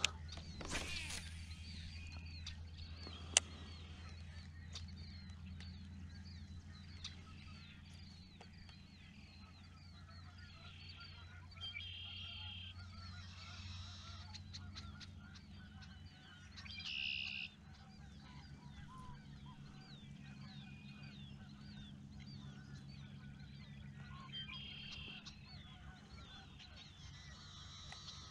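Faint wildlife calls: many small repeated chirps throughout, with a few louder calls of about a second each, the loudest about 17 seconds in. A knock comes just after the start and a sharp click about three seconds in.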